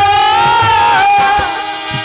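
Harmonium and dholak playing a devotional folk tune: one long held melody note over steady drum beats about twice a second, easing into quieter held harmonium chords about halfway through.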